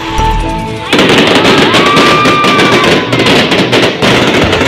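Fireworks going off in a loud, rapid barrage of crackling and popping bangs that starts about a second in, after a moment of background music. A short whistle rises and holds among the cracks.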